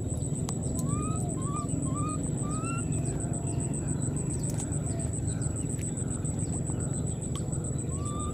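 A series of short, rising squeaky animal calls, four in quick succession about a second in and two more near the end, over a steady low rumble of outdoor noise.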